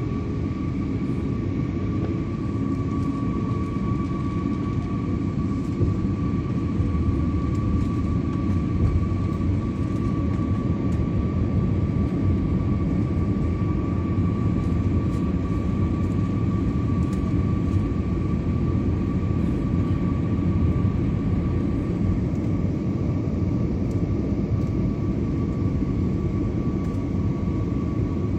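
Jet airliner cabin noise: a steady low engine-and-airflow rumble with a constant high whine above it.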